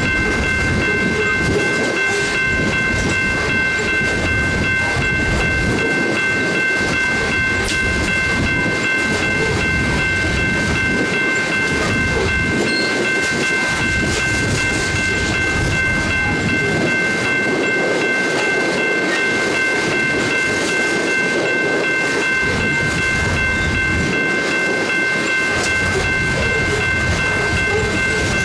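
Coal train hopper cars rolling past, a continuous rumble with wheel clatter that swells and eases every few seconds, over a steady high-pitched whine.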